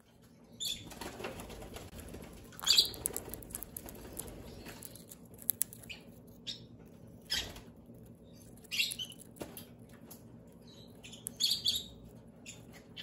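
Green-cheeked conure giving short chirps every couple of seconds, about five in all, with wing flapping between the calls.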